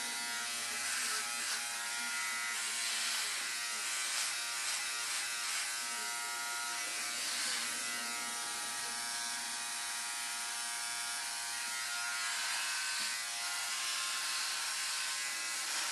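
Philips OneBlade electric shaver running in a steady buzz as its oscillating blade is drawn over stubble on the jaw and neck.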